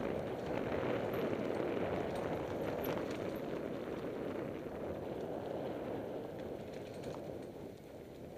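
Mountain bike coasting fast down dirt forest singletrack: steady tyre and trail noise with scattered clicks and rattles from the bike, easing off a little near the end.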